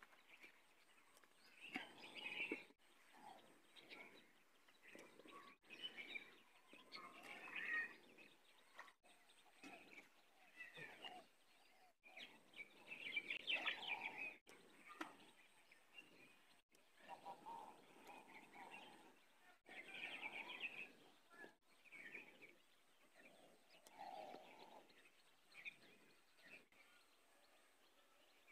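Faint open-air rural ambience with birds chirping on and off.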